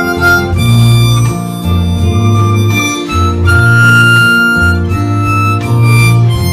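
Diatonic harmonica in C playing a simple melody of held notes over an acoustic guitar backing track.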